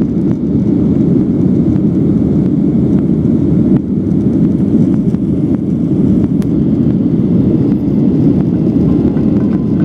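Steady, low, dense noise of a Boeing 737-900 in flight, its CFM56 jet engines and the rushing air heard from inside the passenger cabin.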